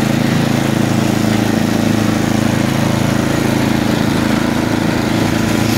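Craftsman 10/29 snowblower's single-cylinder Tecumseh Snow King engine running steadily at an even speed.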